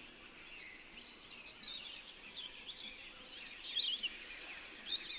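Small birds chirping faintly, a run of short quick twittering calls that grows a little louder toward the end.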